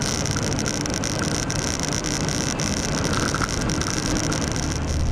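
Inside a truck's cab on a washboard gravel road: steady road and engine noise with a constant rattle of short knocks as the truck shakes over the corrugations.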